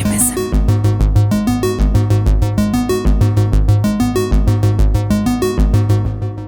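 Electronic ringtone music: a synthesizer playing fast, evenly repeated notes over a pulsing bass line, fading out near the end.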